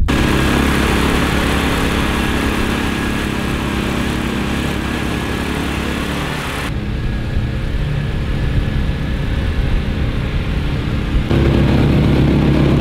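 Small air-cooled gas engines of a mud-motor duck boat running steadily at speed, with hull and water rush mixed in. The sound changes abruptly twice, the last stretch lower and louder.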